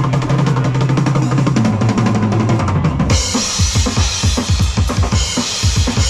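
Live punk rock band playing loud, with bass guitar, distorted electric guitars and a drum kit. The first half is driven by a held low bass note with fast picking. About halfway through, the drums come in hard, with crashing cymbals and rapid kick-drum beats.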